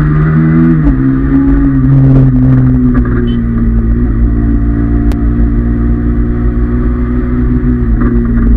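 Honda CBR motorcycle engine running through its stock exhaust, held at a fairly steady speed, its pitch dipping slightly about a second in and again near the end.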